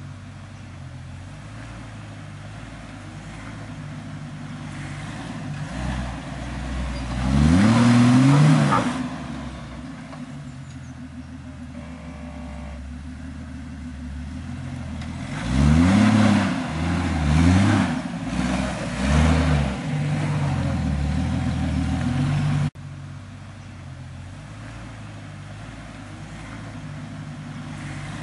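Jeep TJ Wrangler engine crawling a rutted four-wheel-drive climb, running low and steady between revs. It is revved up hard once about 8 seconds in, then blipped three or four times in quick succession a little past halfway, as the driver works the Jeep over the ruts.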